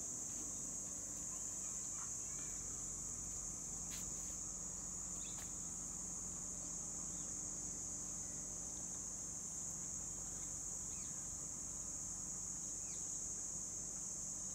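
Steady high-pitched insect chorus, an unbroken drone, with a few faint short chirps over it.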